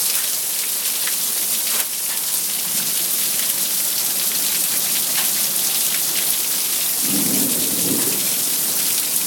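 Hailstones pounding parked cars in a dense, steady downpour of sharp ticks, hard enough to dent hoods and crack a windshield. A low rumble comes about seven seconds in.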